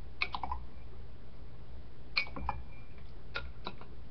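Wooden spoon knocking and scraping against the side of a glass measuring cup while stirring a stiff flour-and-salt dough: small clusters of sharp clicks, one near the start, one about two seconds in and a couple more after three seconds, over a steady low hum.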